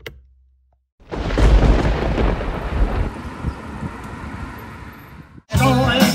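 A sudden loud rumbling crash about a second in, dying away over about four seconds and then cut off abruptly. Rock music with singing starts near the end.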